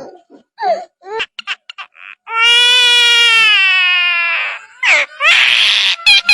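Bird calls: a few short chirps, then one long, loud wailing cry of about two seconds, and a string of quick falling cries near the end.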